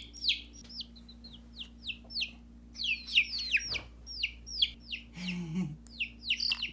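Chickens peeping: many short, high chirps, each falling in pitch, a few a second. A brief low sound a little past five seconds stands out under them.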